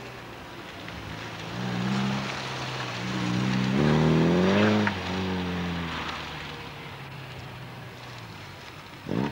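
Ford Fiesta hatchback's engine revving up and down several times, loudest at full throttle about four seconds in, then easing to a lower note. Just before the end the revs shoot up sharply.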